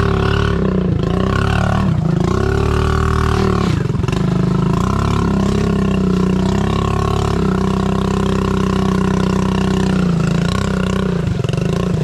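A motor vehicle's engine running continuously and loud, its pitch dipping and climbing again several times as the revs change, around two and four seconds in and again near the end.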